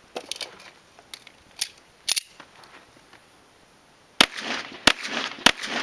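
A handgun fired three times in quick succession, about two-thirds of a second apart, each shot sharp and echoing, the first about four seconds in. Before them, a few much fainter clicks.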